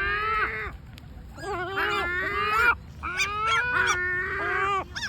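Great black-backed gulls giving long, drawn-out complaining calls in three bouts, several birds overlapping.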